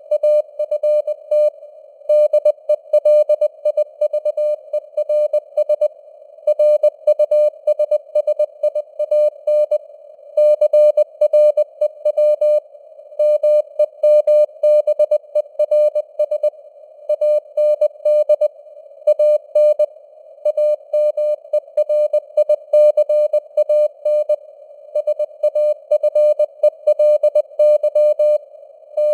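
Morse code (CW) sent at 20 words per minute: a single steady beeping tone keyed in dots and dashes, with short gaps between words, over simulated radio static with the signal strength fading up and down (QSB).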